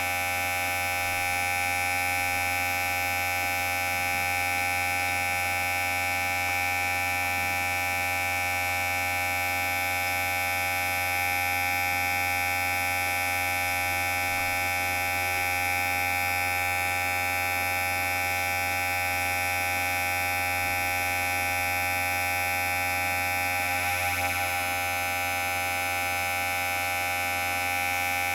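Electric hair clipper running, a steady continuous buzz.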